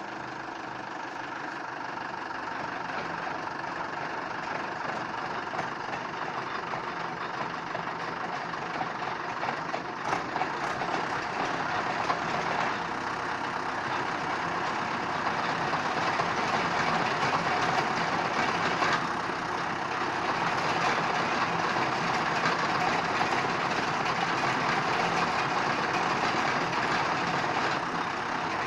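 Tractor engine running steadily under load. It grows gradually louder over the first half and then holds level.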